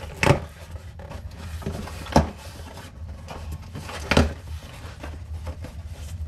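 Cardboard shipping box being handled and opened by hand: three sharp knocks about two seconds apart, with cardboard scuffing and rustling between them as the flaps are pulled open.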